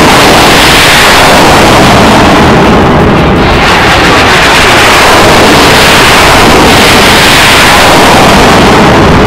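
Continuous loud, distorted roar of rockets launching from M142 HIMARS launchers, the high end thinning briefly about three seconds in.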